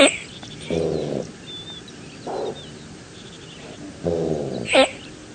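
Antelope calls: low bleating grunts about a second in and again at four seconds, a shorter call between, and a shrill cry that falls steeply in pitch at the start and again near the end.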